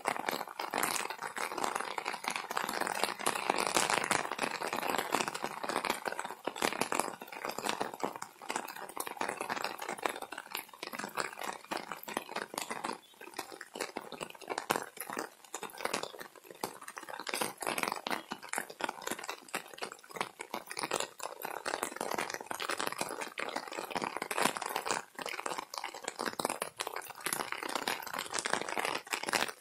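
Rain falling steadily on an umbrella held over the phone: a dense, irregular tapping of drops hitting the fabric close by.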